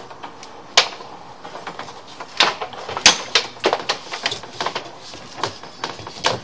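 Irregular sharp clicks and knocks, more than a dozen in a few seconds, the loudest a little under a second in and about three seconds in: the clatter of a sewer inspection camera's push cable and reel as the camera is worked back through the drain pipe.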